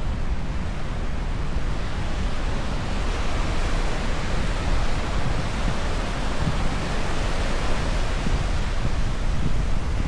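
Ocean surf washing onto a beach: a steady rush of breaking waves over a low rumble, swelling as a wave comes in around the middle.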